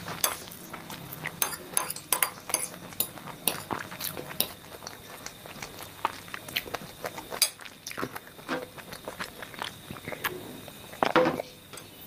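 Close-up eating sounds: a fork clinking and scraping on a plate of chowmein noodles, with chewing and slurping, in quick irregular clicks and a louder burst near the end.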